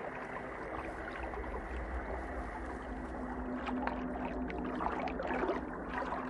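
Underwater ambience: a steady gurgling wash of water, with a low steady tone through the middle.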